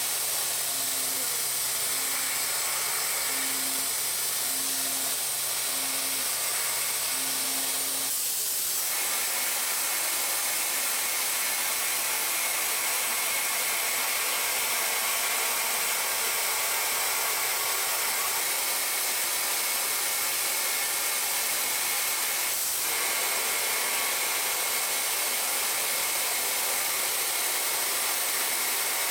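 Tongtai VP-8 vertical machining center running, a steady machine hiss. A low hum and a faintly pulsing tone under it stop about eight seconds in.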